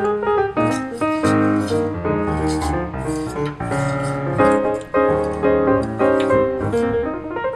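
Background piano music, a steady run of notes changing several times a second.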